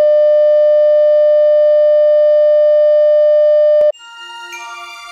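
Loud, steady, single-pitch test tone accompanying colour bars, cutting off abruptly about four seconds in. Light music of bell-like struck notes follows at a lower level.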